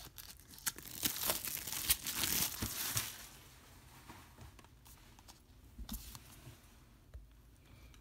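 Plastic shrink-wrap crinkling and tearing as it is pulled off a Blu-ray case, loudest for a couple of seconds about a second in. After that come softer handling rustles and a few light clicks.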